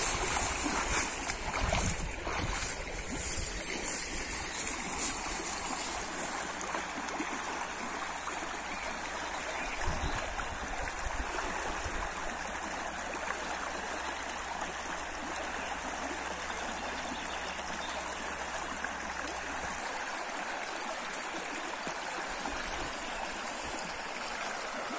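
Shallow, rocky river riffle rushing steadily, with a few low bumps near the start.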